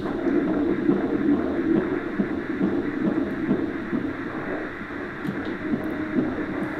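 Fetal heartbeat played through the ultrasound scanner's Doppler speaker: a rapid, even pulsing beat, a little over two beats a second.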